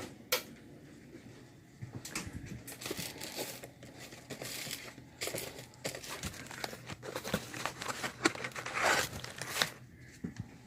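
Crinkly material being handled: irregular crinkling and rustling with sharp crackles. It starts about two seconds in and stops shortly before the end, after a single sharp click near the start.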